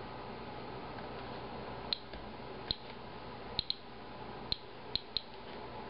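Inspector Alert Geiger counter clicking at a slow, irregular rate: seven short, high clicks, two of them close together, each one a detected count of ionizing radiation during a count of a green tea sample.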